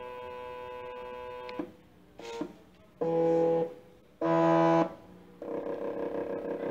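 NEMA 17 stepper motor (17HS4401, 1.5 A) being stepped in short moves, giving off a steady electrical hum at a fixed pitch during each move. A level hum for the first second and a half, then two louder short runs of well under a second each, and a longer, grainier run near the end.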